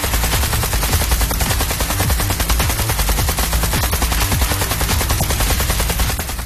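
Gel blaster firing on full auto: a fast, steady rattle of shots that cuts off suddenly at the end.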